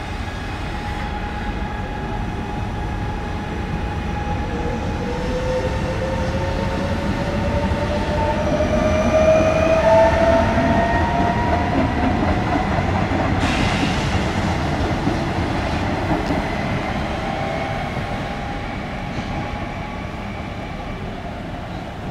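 Trenitalia regional electric multiple unit pulling through the station, its traction motors giving a whine that rises steadily in pitch as it gathers speed over the rumble of the wheels on the rails. The sound swells to its loudest about halfway and fades toward the end, with a single sharp click about two-thirds of the way through.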